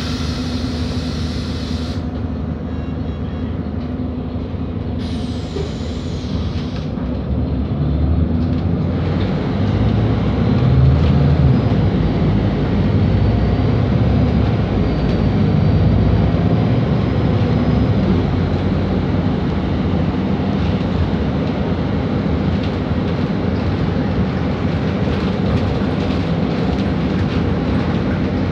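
Inside a Volvo B7RLE bus under way: the rear-mounted 7-litre six-cylinder diesel drones with road rumble, getting louder about eight seconds in as the bus picks up speed.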